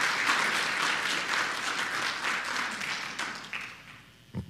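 Audience applauding, the clapping thinning and fading out toward the end. A brief low thump comes near the end.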